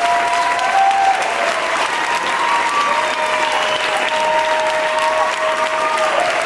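Audience applauding loudly and steadily, with long held cheers from a few voices over the clapping.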